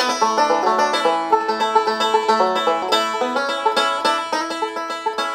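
Instrumental intro music: a quick run of plucked-string notes, gradually getting quieter.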